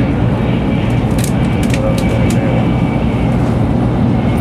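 Steady rumble of a Shinkansen bullet train running at speed, heard inside the passenger car, with a few faint clicks about a second in.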